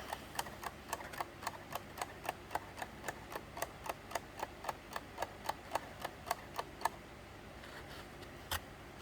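3D-printed plastic tourbillon clock movement ticking: its escapement clicks briskly and evenly, about three to four ticks a second. The ticking stops about seven seconds in, and one louder click follows near the end.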